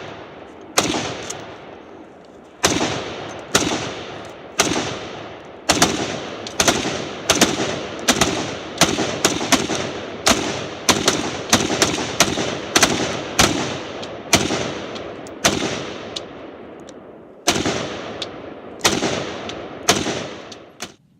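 Rapid gunfire: around thirty shots in quick succession, up to about two a second at the fastest, each followed by a rolling echo. The firing stops just before the end.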